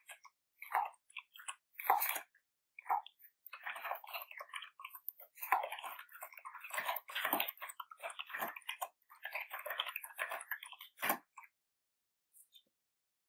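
Typing on a computer keyboard: irregular keystroke clicks, a few spaced strokes at first, then quick runs of keystrokes, with one harder keystroke near the end.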